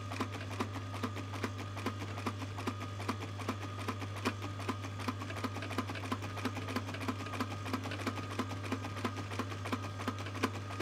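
Industrial sewing machine stitching slowly, a zip onto cushion fabric: an even run of needle-stroke clicks, several a second, over the steady low hum of its motor.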